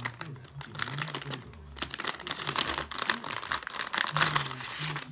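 Metallized anti-static bag crinkling and rustling in quick, irregular crackles as a graphics card is drawn out of it and the plastic is pulled off, loudest about four seconds in.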